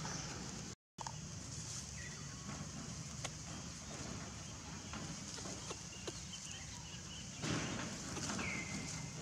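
Outdoor ambience over dry leaf litter: light crackling and rustling of dry leaves as macaques move and handle them, louder for a moment about seven and a half seconds in, with a few short high calls, one falling call near the end. The sound cuts out completely for a moment about a second in.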